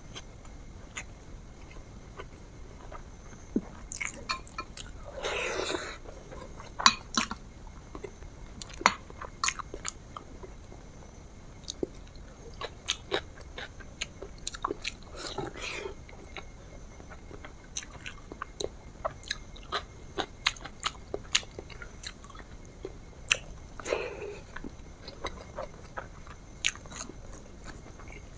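A person eating close to the microphone: chewing with frequent sharp mouth clicks. Three longer swells of sound come about five, fifteen and twenty-four seconds in.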